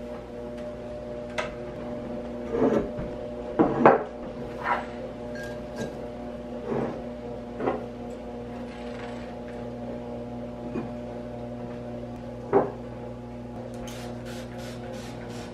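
Household items being picked up and set down on a table, with a few sharp knocks, then several quick squirts from a trigger spray bottle near the end. A steady low hum runs underneath.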